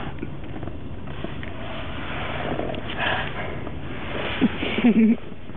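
Steady low rumble of a car interior while riding, with breathy sniffing sounds. About four and a half seconds in come a few short, loud voice sounds that bend in pitch.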